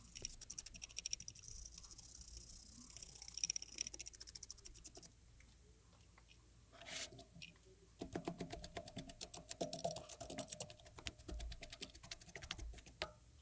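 Faint, rapid scratchy scrubbing as dust is cleaned off a MacBook Pro logic board, in two spells with a quiet pause of a few seconds in the middle.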